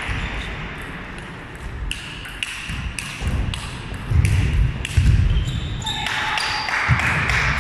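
Table tennis rally: the celluloid ball clicks sharply on the rackets and table about twice a second. Players' shoes thud on the hall floor in the middle and again near the end, over a noisy, echoing hall background.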